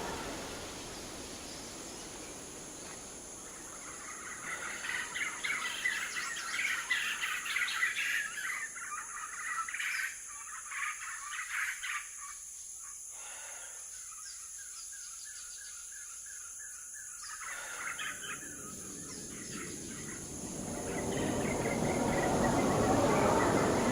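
Birds chirping in quick, irregular calls over a steady high hiss, busiest in the first half. A broad rushing noise swells up near the end.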